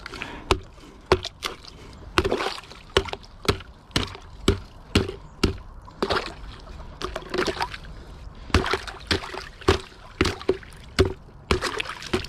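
A hammer knocks repeatedly on ice in a bucket of frozen drinking water, breaking it up, with water sloshing and ice chunks knocking about. The knocks come roughly two a second, with short pauses.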